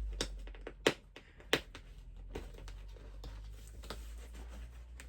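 Plastic toy packaging being picked at with fingernails: irregular sharp clicks and taps, three loud ones in the first second and a half, fainter ones after.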